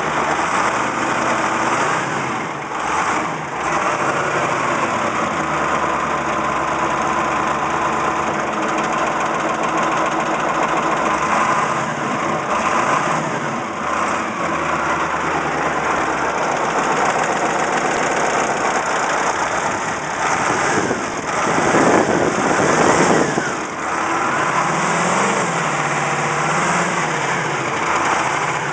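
Caterpillar 3208T turbocharged V8 diesel running, with the rattle its owner is trying to identify. He suspects fuel knock, injector knock, or a broken piston or rings. The rattle eases when the fuel line to cylinder 4 is cracked loose. The engine speeds up and drops back briefly about three-quarters of the way through.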